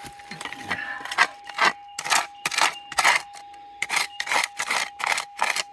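A digging pick scraping and chipping at dirt and rock in a bedrock crack, digging out a metal detector target, with repeated strokes about two a second. A thin steady tone runs underneath.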